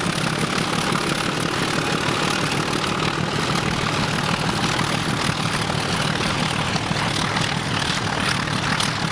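Two English Electric diesel-electric locomotives, an 800 hp Y class and a 660 hp X class, running under power as they pull a train, with a steady engine sound.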